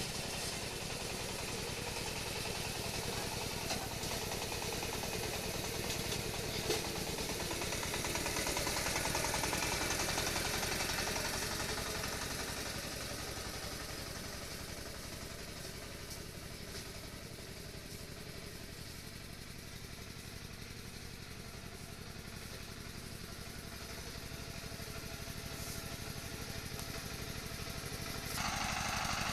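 An engine running steadily, swelling louder about ten seconds in, easing off in the middle, then jumping louder abruptly near the end.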